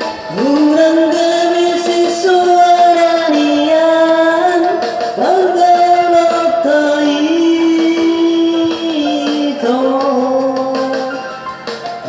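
A singer holding long, drawn-out notes that step slowly from pitch to pitch over backing music, in a sung Batak song.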